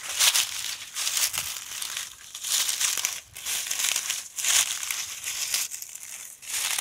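Footsteps crunching through dry leaf litter on a wooded hillside, at a walking pace of about one step a second.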